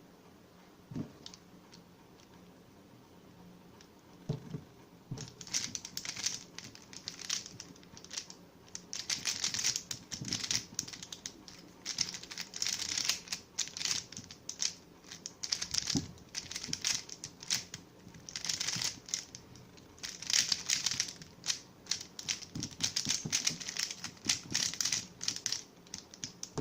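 Plastic Rubik's Cube being twisted quickly by hand: a fast, irregular run of clicking, scraping layer turns that starts about four seconds in, after a couple of faint knocks.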